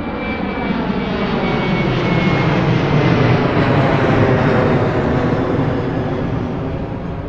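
An airplane flying past: a loud, steady engine roar that starts suddenly, swells to a peak around the middle and slowly fades.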